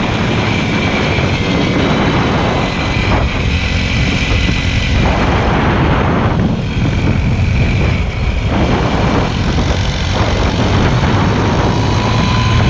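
Motorcycle engine running steadily while riding, its note shifting several times as if with throttle or gear changes.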